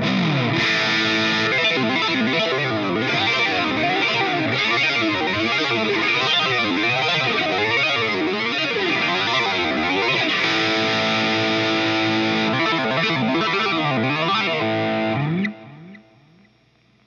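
Distorted electric guitar played through the GTC REVPAD's Easy Arpeggiator effect with delay, its chords broken into rapid rising and falling arpeggiated notes. The playing stops about a second and a half before the end, leaving a short fading delay tail.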